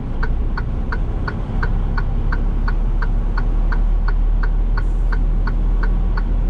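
A semi truck's indicator flasher ticking evenly, about three ticks a second, over the steady low rumble of its diesel engine as the truck creeps through a slow turn.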